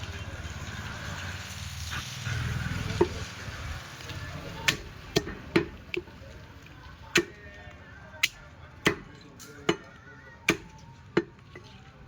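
Butcher's cleaver chopping through goat meat and bone: a string of sharp single chops, spaced roughly a second apart, starting a few seconds in.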